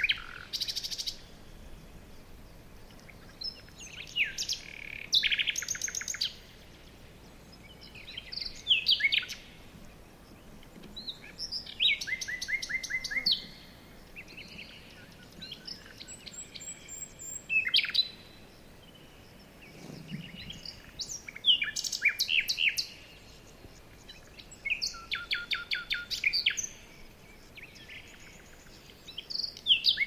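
Eurasian tree sparrows chirping: short runs of quick, high chirps that come every two or three seconds.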